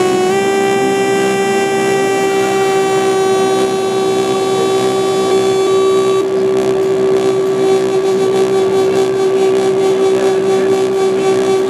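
Elektron Analog Four analog synthesizer holding a single buzzy note rich in overtones. About six seconds in, the top of the sound drops away and a fast rhythmic pulsing comes in under the held note.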